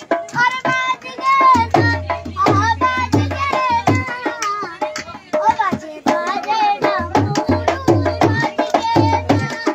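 A boy singing a folk song while playing a dholak, the two-headed barrel drum, with sharp hand strokes and deep bass thumps under his voice.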